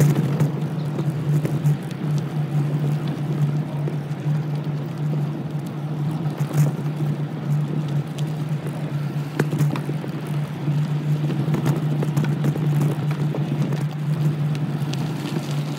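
A small motor running at a steady, even pitch while riding along a bumpy dirt trail, with scattered ticks and rattles from the ride over the ground.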